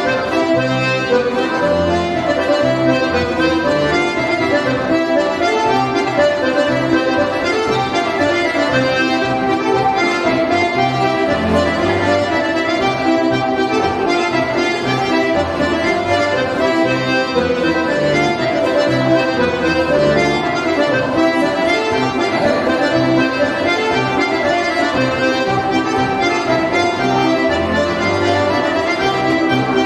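Accordion-led polka dance music playing with a steady beat.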